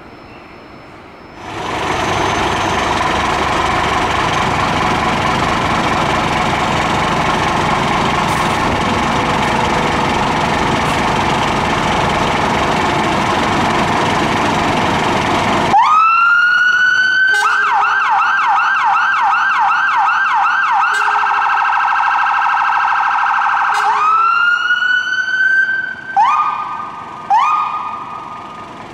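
Scania fire engine's electronic siren being tested through its tones. First comes a loud, steady, harsh tone for about fourteen seconds. Then a wail rises and gives way to a fast yelp of repeated sweeps, a faster steady warble, and a few short rising wails near the end.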